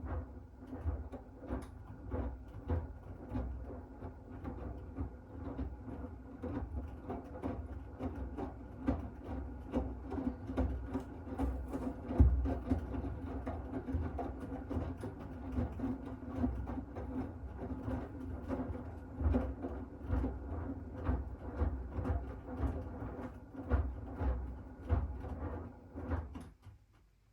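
Miele W1 Active WCA 030 washing machine with its Profi-Eco motor turning the drum during the wash, a steady hum under irregular thuds of tumbling laundry. The drum stops about a second before the end: one turning phase of the wash rhythm.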